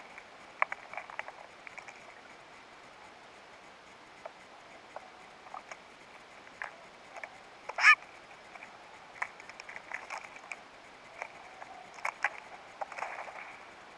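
Steller's jays pecking at a pile of peanuts on a log: scattered light taps and clicks. One loud, brief, wavering call about eight seconds in.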